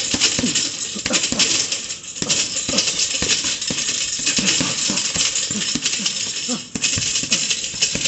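Boxing gloves striking a double-end bag in quick, irregular punches and combinations, with a dense clinking rattle under the hits.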